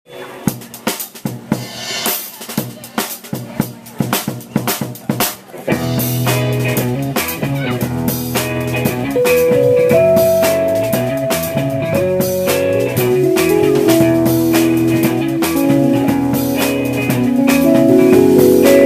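A live band's instrumental intro. A drum kit plays alone for about six seconds, then the rest of the band comes in under the drums, with held keyboard notes forming a melody.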